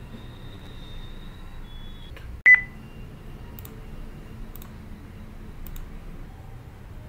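A single short, loud electronic beep about two and a half seconds in, over a steady background hum with a faint high-pitched whine.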